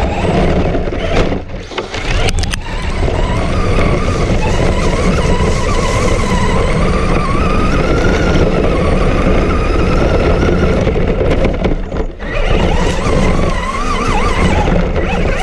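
Radio-controlled car running hard, with a whine that rises and falls in pitch as the throttle changes, over a loud low rumble. The sound dips briefly a couple of times.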